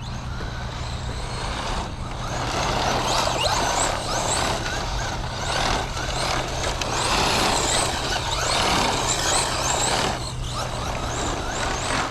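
Team Associated Pro2 SC10 RC short course truck driving, its brushless motor whining up in many short rising bursts as the throttle is worked, over a steady hiss of tyre noise. It gets louder about two seconds in.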